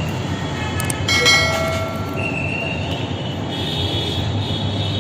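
Steady mechanical background noise with a low hum, typical of a food-shop kitchen with its grill and fans running. A brief metallic clatter with ringing comes about a second in.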